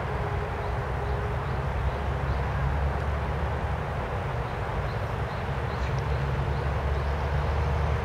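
Outdoor park ambience: a steady low rumble, with faint short high chirps scattered through.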